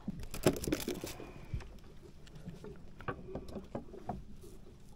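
Knocks and rustles of fishing gear being handled in a small wooden boat, loudest in the first second, followed by fainter scattered clicks as fishing pliers are worked on a small catch.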